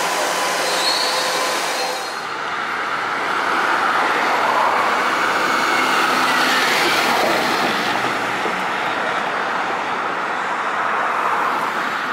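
A Mercedes-Benz city bus passes in street traffic and pulls away, its engine note falling in pitch as it goes by. For the first two seconds there is the steady noise of a light-rail station platform with a train standing at it.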